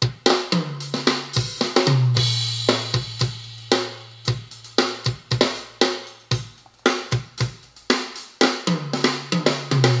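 Drum kit playing with bass drum, snare, cymbals and hi-hat over backing music with a deep held bass line, played back from a phone through computer speakers over a Bluetooth 5.0 receiver.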